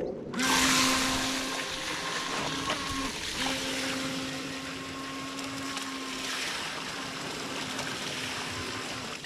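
FTX Glader (TY XIN 725) RC jet sprint boat's brushed electric motor and jet drive running with a steady whine over the hiss of water spray. The whine dips or breaks off briefly a few times as the throttle is eased.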